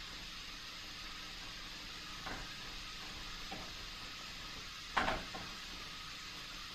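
Steady hiss of room noise with a few short clicks, the loudest about five seconds in.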